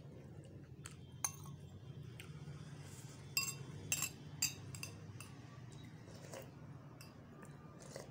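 Metal spoon and tableware clinking against a ceramic bowl and plate: several short, sharp clinks spread out, the loudest cluster about halfway through, over a low steady hum.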